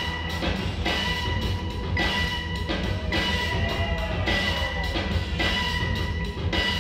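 Music played over the DJ's sound system: a steady drum beat over deep bass, with sustained tones above.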